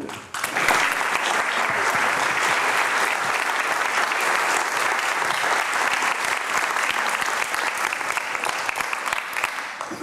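A small seated audience applauding, the clapping starting just after the start and easing off near the end.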